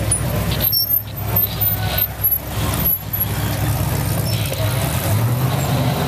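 Engines of Ultra4 rock-racing buggies revving hard as they crawl up a boulder climb, the throttle easing off briefly about a second in and again around three seconds.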